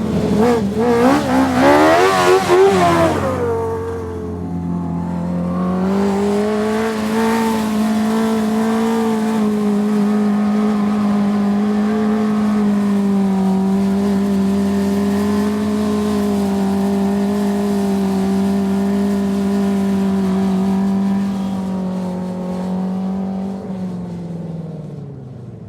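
Dirt-track sprint car's V8 engine revving hard with a wavering, rising pitch for the first few seconds, then running at a steady pitch, dropping in pitch and fading near the end.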